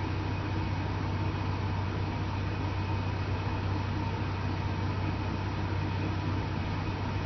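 Steady road and engine noise heard from inside a moving car, with a constant low hum.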